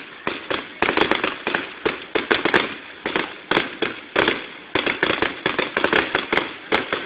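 Fireworks going off in quick, irregular succession: many sharp bangs and crackles, several a second, each dying away in a short echoing tail.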